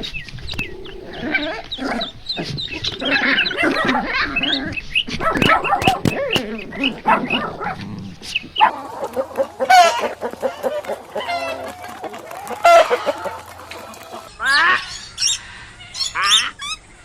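Chickens clucking, many short calls overlapping, with a different run of sharp sweeping calls near the end.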